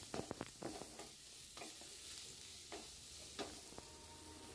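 Wooden spatula stirring and scraping chopped onion and garlic frying in oil in a non-stick kadai, with a faint sizzle underneath. A quick run of strokes comes in the first second, then a few single strokes spaced out.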